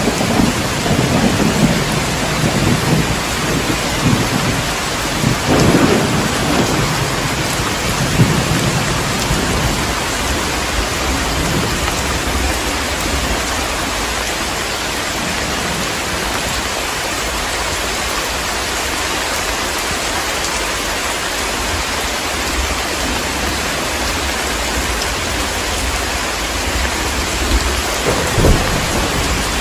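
Heavy rain falling steadily in a thunderstorm, with thunder rumbling low through the first several seconds, then a short, louder roll of thunder near the end.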